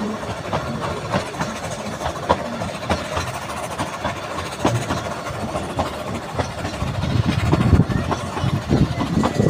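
Narrow gauge steam-hauled train running along the line, heard from a carriage: the wheels click and clatter on the rails over a low rumble, and the rumble grows louder near the end.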